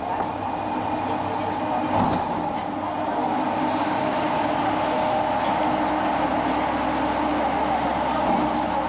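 Subway train running, a steady rumble with a whine held at an even pitch.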